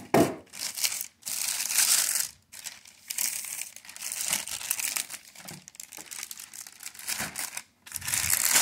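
Plastic packaging bag being handled and crinkled, in irregular bursts of rustling with short pauses.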